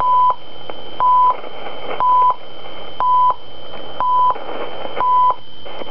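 CHU Canada time signal received on a Sony ICF-SW77 shortwave receiver at 3330 kHz: a 1000 Hz second tick, each beep about a third of a second long, once a second, six times, over shortwave hiss. A faint steady high whistle runs underneath.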